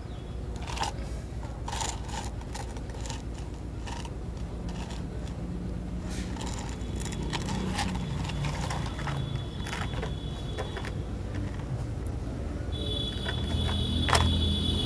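Small parts being handled: scattered clicks, taps and scrapes over a steady low hum. About thirteen seconds in, a steady high whine with a low hum under it starts up, like a small motor.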